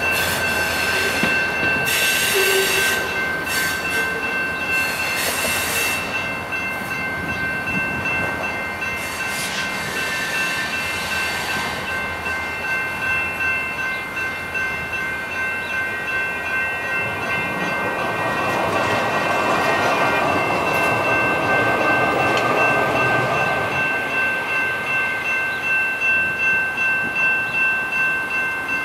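Grade-crossing warning bells ringing steadily throughout. In the first six seconds the last freight car clatters across the crossing. A light rail train rumbles past through the crossing from about 18 to 24 seconds in.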